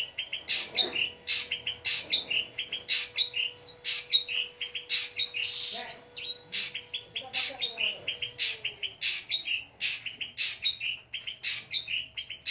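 Long-tailed shrike (pentet) singing a rapid, nonstop string of chirps and mimicked calls, several notes a second, with a few swooping whistled notes among them.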